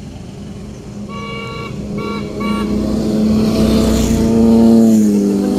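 A horn toots three times, one longer toot then two short ones, between about one and two and a half seconds in. Then motorcycles approach and pass, their engines getting louder to a peak near the end and dropping slightly in pitch as they go by.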